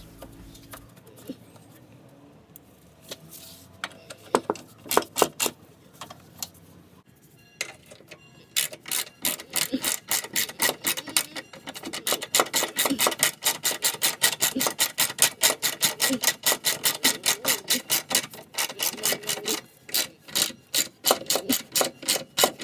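Ratchet wrench clicking steadily, about five clicks a second, as the 10 mm bolts of the hydragas sphere's metal cover plate are run in. Quiet handling with scattered clicks comes first, and the clicking starts about eight seconds in, with a few short breaks near the end.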